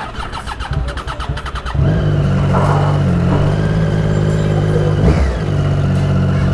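Triumph Daytona 675R's inline-three engine pulling with uneven pulses, then running loud at a steady high pitch from about two seconds in, with a brief dip about five seconds in.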